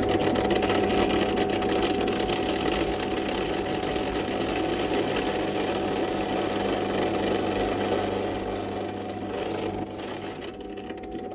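Electric drill running steadily, boring a pre-hole into a block of very hard wood for a threaded gear-knob insert. It is a little quieter after about ten seconds.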